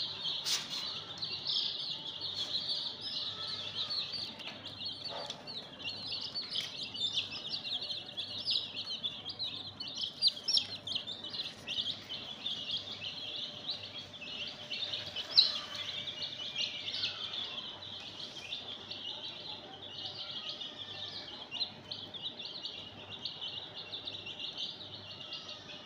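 A crowd of chicken chicks peeping, many short high-pitched peeps overlapping without a break, with one louder peep about fifteen seconds in.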